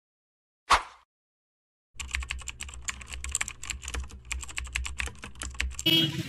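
Computer-keyboard typing sound effect: rapid, irregular key clicks for about four seconds over a low hum, preceded by a single brief hit just under a second in. Near the end it gives way to busy street noise.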